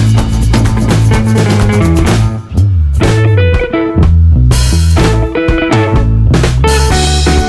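Background music: an upbeat rock-style track with electric guitar, bass and drum kit, with a brief break about two and a half seconds in.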